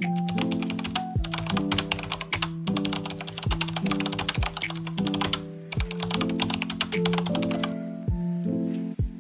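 Background music of sustained notes changing every second or so, overlaid with dense runs of rapid typing-like clicks that pause briefly a few times.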